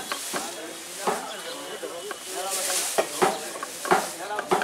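Knife chopping green capsicums on a thick wooden block: irregular sharp knocks of the blade on the wood, several of them close together in the second half, over a steady hiss and faint background voices.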